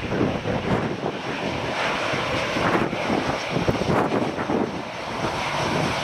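Jet engines of a taxiing Airbus A320-family airliner running at low taxi thrust, a steady rushing noise, mixed with gusting wind buffeting the microphone.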